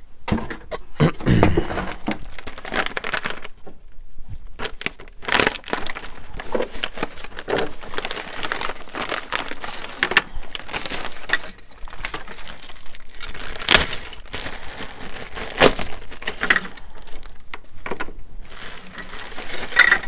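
Clear plastic parts bag crinkling and rustling as it is handled and opened, with continuous crackling and a few sharper snaps.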